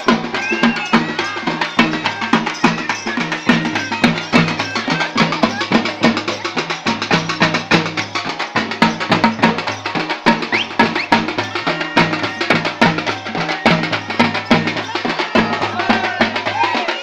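Halage (halgi) frame drums beaten in a fast, steady rhythm.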